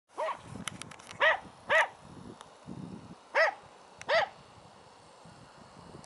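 A dog barking: five short, loud barks spaced unevenly over about four seconds.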